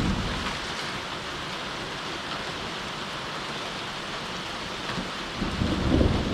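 Steady rain falling, with thunder: a low rumble fades away in the first second, and another roll of thunder builds near the end.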